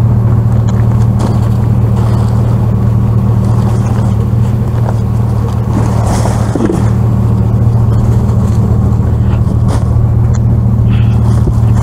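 A loud, steady low mechanical hum drones on at one pitch throughout. Over it come soft rustling and scraping as cardboard boxes and plastic wrap are shifted about in a metal dumpster.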